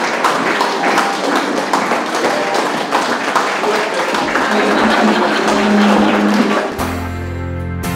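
Guests applauding with steady clapping, some music mixed in underneath. About seven seconds in the clapping cuts off abruptly, replaced by acoustic guitar music.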